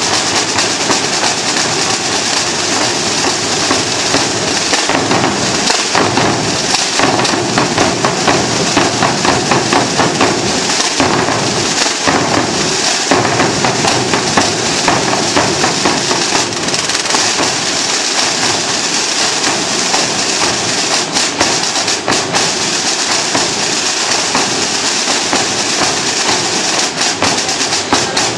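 A Holy Week drum corps plays its snare drums and bass drums together in dense, unbroken rolls and rapid strokes, with sharper single strokes standing out near the end.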